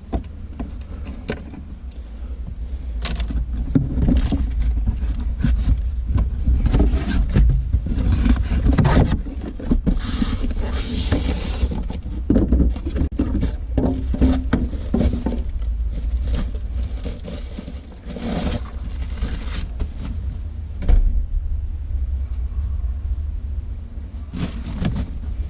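Scattered clicks, knocks and rustling of hands making wiring connections for a car stereo install, over a steady low rumble.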